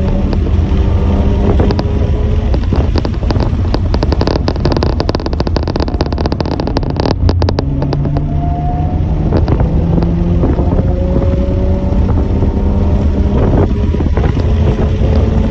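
Motor vehicle engines running, several engine notes overlapping and slowly sliding in pitch, over a heavy rumble of wind on the microphone. A run of crackling clicks comes in the middle.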